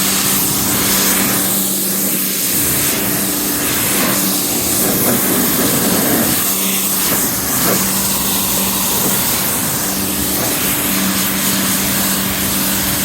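Pressure washer rinsing a car: a steady motor and pump hum under a loud hiss of water spray, the hum breaking off briefly a few times.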